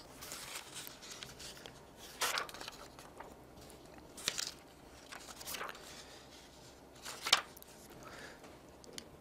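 Handling noise: about five brief rustles a second or two apart, the loudest near the end, picked up close on a clip-on microphone.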